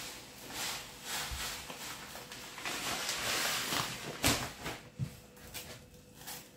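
Coarse salt pouring from a plastic bag onto pork belly in a plastic tray: a grainy hiss with the bag rustling, heaviest around the middle. A sharp knock comes about four seconds in, then a quieter rubbing as a hand spreads and pats the salt layer.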